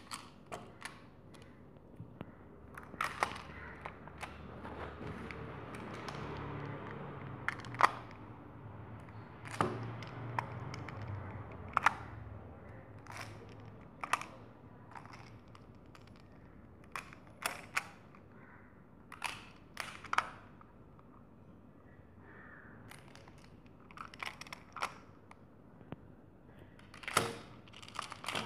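Plastic magnetic building tiles clicking and clacking irregularly as they are snapped together edge to edge and set down on a table.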